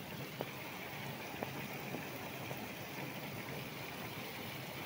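Heavy rain falling steadily, with water pouring off a roof edge and splashing onto stone pavement, and a few sharper drip taps.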